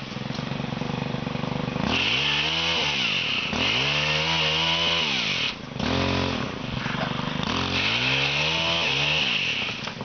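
Pole saw's small engine revving up and dropping back about four times as its chain cuts into a tree branch.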